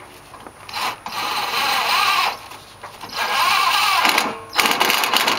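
Cordless impact driver hammering bolts into the condenser fan shroud, in three bursts of a second or so each, with rapid rattling blows.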